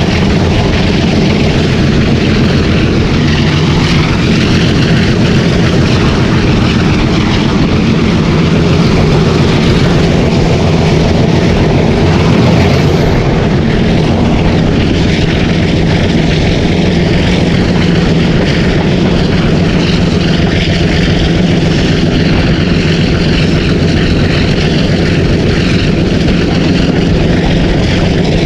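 Hitachi PHA-20 diesel locomotive engine running loudly and steadily, a low, even drone with no change in pitch.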